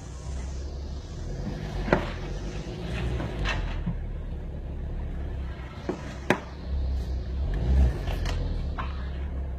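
Porsche Cayenne running at low speed while being manoeuvred, a steady low engine rumble, with a few sharp clicks, the loudest about two seconds in and about six seconds in.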